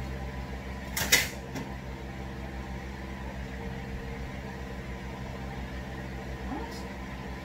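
Washing machine running with a steady low hum. A sharp clatter about a second in is the loudest sound, with a fainter click just after it.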